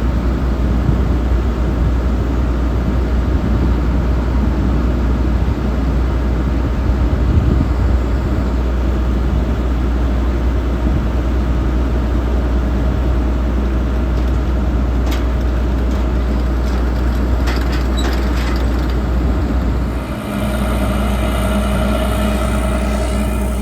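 Heavy diesel farm machinery running steadily with a deep rumble, with a few sharp clicks partway through. About 20 s in the sound dips briefly and changes to a steadier hum with distinct pitched tones.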